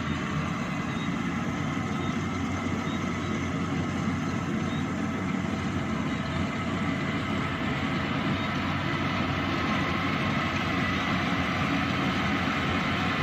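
Yanmar 82V rice combine harvester's diesel engine running steadily under working load, with a high steady whine above the engine note.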